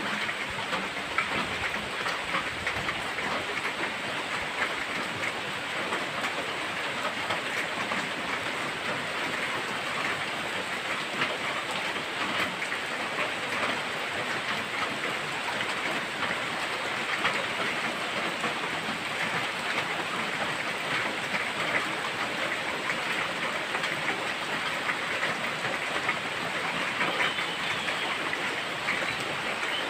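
Steady water noise: a dense, even hiss peppered with fine crackling ticks.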